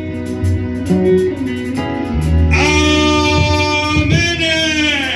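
Live church worship band music: keyboard and bass chords, with a held lead note coming in about two and a half seconds in and wavering near the end.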